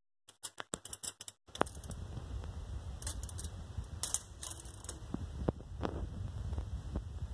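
Handling noise: scattered light clicks and rubs, with a low steady rumble underneath from about a second and a half in.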